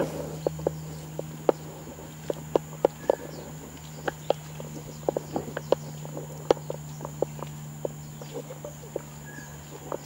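Footsteps on a muddy dirt trail, irregular footfalls two or three a second, over a steady high insect drone from the tropical forest and a steady low hum.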